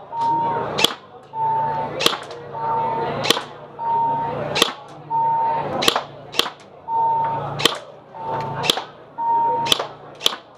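Single shots from an airsoft rifle, about ten sharp cracks roughly a second or so apart. Most come shortly after a short, steady electronic beep.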